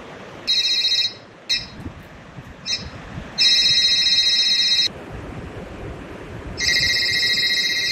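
Mobile phone ringtone: electronic tones in a few short bursts, then a longer ring, and another ring starting near the end.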